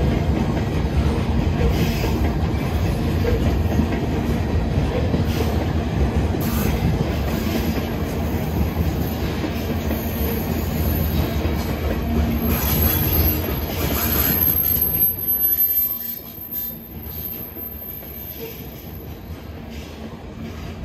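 Freight cars of a manifest train rolling past on the rails with a steady rumble. A thin, very high wheel squeal sets in about twelve seconds in and holds for several seconds, and the rumble drops off sharply about three-quarters of the way through.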